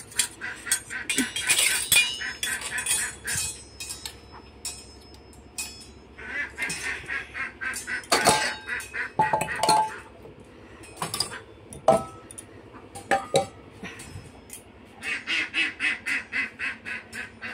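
Scattered clinks and knocks of metal kitchenware, with two bursts of rapid, repeated animal calls, about six seconds in and again near the end.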